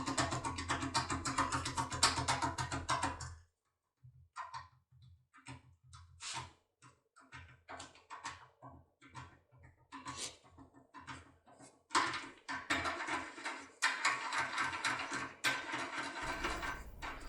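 Foil impressioning lock tool worked in a cylinder lock, rocked under tension: irregular small metallic clicks and scraping that come thicker and faster in the last few seconds. A rhythmic passage, likely background music, runs for the first few seconds and cuts off.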